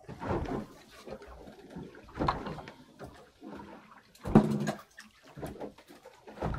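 Seawater sloshing and slapping against a small boat's hull in irregular splashes a second or two apart, the loudest about four seconds in.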